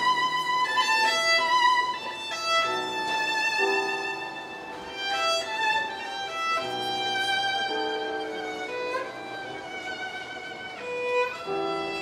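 Violin playing a melody of held notes with vibrato over a small string ensemble accompaniment, cello included.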